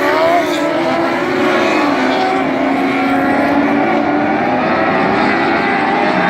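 A pack of dwarf race cars running laps on a dirt oval, their motorcycle-based four-cylinder engines sounding together with several engine notes rising and falling.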